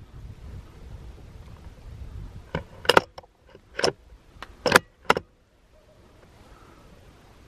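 Bolt of a suppressed bolt-action .22 LR rifle being racked between shots to chamber the next round: about five sharp metallic clacks over two and a half seconds, after a low handling rumble.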